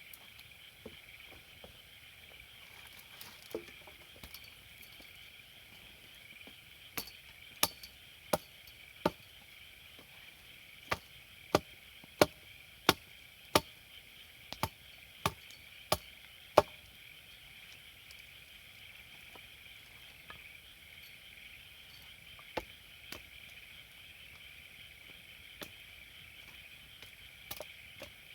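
Wood being chopped for a campfire: a run of sharp, evenly spaced strikes, about one every two-thirds of a second, that start about a quarter of the way in and stop before two-thirds of the way, followed by a few scattered knocks. A steady chirring of night insects runs behind.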